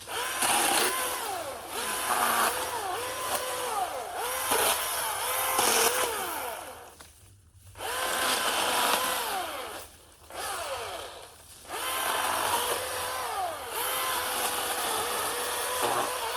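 Milwaukee M18 battery-powered electric chainsaw running in repeated bursts while clearing brush, its motor whine rising and falling again and again as it cuts, with a few brief stops between runs.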